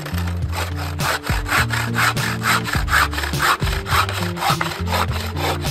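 Wooden frame bow saw, its blade tensioned by a twisted cord, cutting through a log in steady rasping back-and-forth strokes, about three a second.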